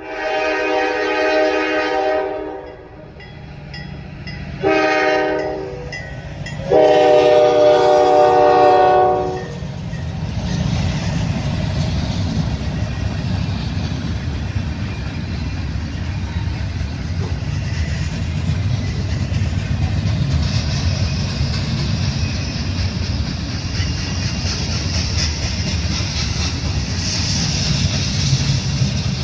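Diesel freight locomotive horn, led by a GE C40-8, sounding three blasts (long, short, long) for a road crossing. Then the train passes: a steady rumble and clickety-clack of freight cars rolling over the rails, with a hiss that grows louder in the second half.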